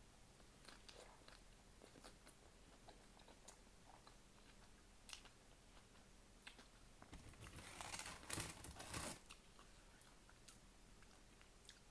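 Faint chewing and mouth clicks of a person eating close to the microphone, with a louder burst of crunching and rustling about eight seconds in.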